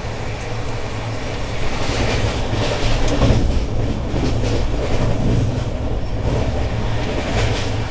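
Express passenger train running at speed, heard from on board: a steady rumble of wheels on rail, with clusters of clattering as the wheels pass over rail joints or points several times.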